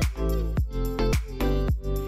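Background music with a steady beat of about two beats a second over a bass line.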